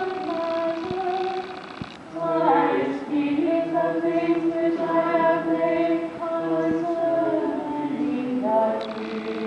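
A small group of mixed voices singing liturgical chant a cappella, women's voices leading in long held notes, with a new, louder phrase starting about two seconds in.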